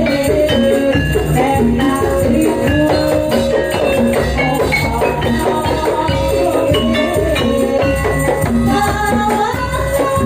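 Loud music for a gajah-gajahan folk performance: melody lines over a steady beat, with jingling percussion.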